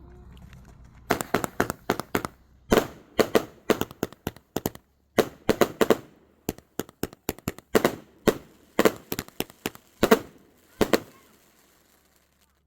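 Consumer firework cake (120 shots) firing: sharp bangs in quick runs of several shots, with short pauses between the runs. The shots start about a second in and stop about a second before the end.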